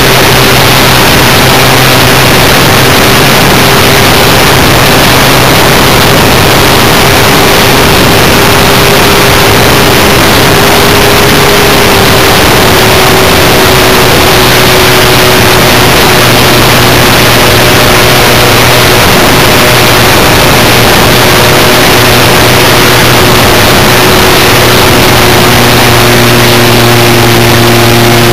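Radio-controlled Cessna Skywagon model's motor and propeller in steady flight, picked up by a camera on the plane itself: a loud, steady drone under a dense rushing hiss, its pitch dropping slightly about twelve seconds in and shifting again near the end.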